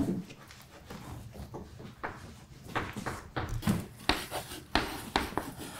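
Classroom handling noises: soft rustling, then a run of sharp knocks and clicks in the second half as a backpack and desk things are handled and set down.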